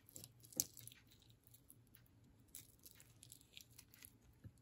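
Faint scraping and light clicks of a metal fork working soft roasted acorn squash flesh away from its peel, with one sharper click about half a second in.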